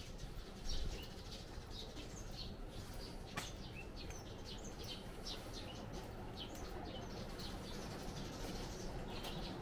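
Small birds chirping in many quick, short calls over a steady low background rumble, with a brief low thump near the start.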